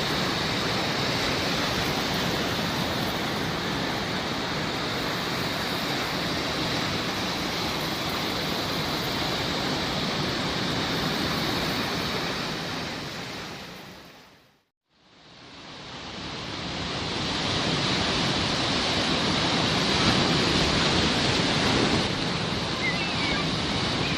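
Sea waves washing on the shore as a steady surf. It fades out about two thirds of the way through, then fades back in.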